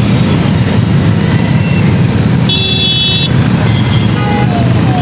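Motorcycle traffic at close range: engines running with a steady low rumble, a vehicle horn honking for under a second around the middle, and fainter short toots a little later.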